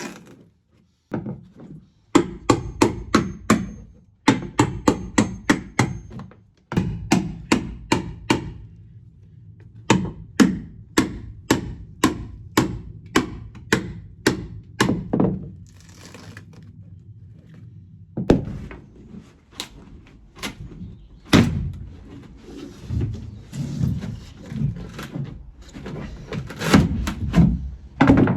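Hammer blows in quick runs, about two to three strikes a second with short pauses between runs, knocking out rotten balsa coring from a fibreglass boat hull.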